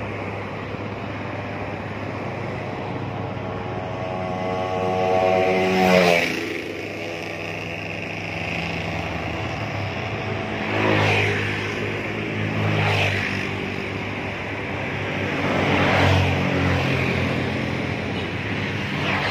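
Vehicles passing one after another on a road bridge, each swelling and fading, about five times; the first, about six seconds in, comes with an engine note rising in pitch as it approaches. A steady low engine drone runs underneath.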